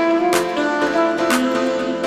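Instrumental background music: sustained melodic notes over a steady beat with a sharp percussive tick about once a second.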